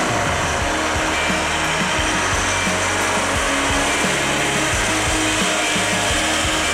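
Background music, dense and noisy, with a low bass line that moves in steps.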